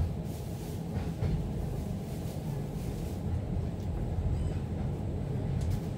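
Electric tram running along city street tracks, heard from inside the car: a steady low rumble.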